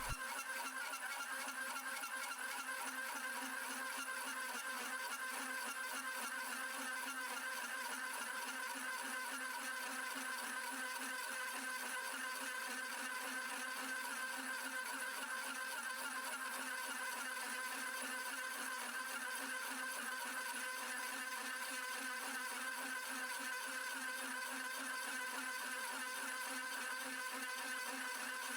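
Drill press running steadily at low speed while a 2-inch carbide-tipped hole saw cuts through 304 stainless steel plate, cooled with water. It makes a constant whine made of several held tones, with no change in pitch while the cut goes on.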